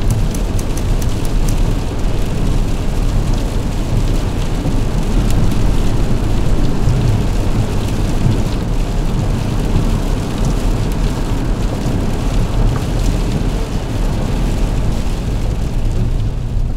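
Rain hitting the windscreen and roof of a VW bus as it drives, heard from inside the cab, with steady engine and road noise underneath. Sharp drop ticks stand out in the first couple of seconds.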